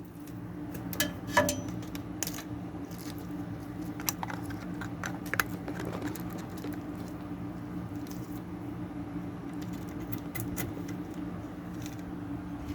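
Scattered light clicks and metallic taps of washer parts and tools being handled, over a steady low hum.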